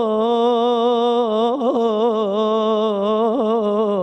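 A solo male voice singing an Islamic ibtihal (devotional supplication), holding one long melismatic note that wavers in small ornamental turns, with no instrumental accompaniment.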